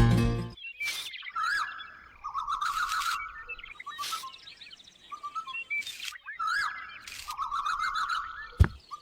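Birds chirping and trilling in short repeated warbling phrases, with brief hissy rustles between them and a sharp click near the end. Background music cuts off about half a second in.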